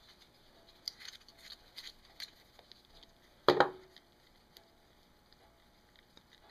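Light clicks and scrapes of hand tools working a screw out of the breaker-points plate on a small engine, with one sharp knock about three and a half seconds in.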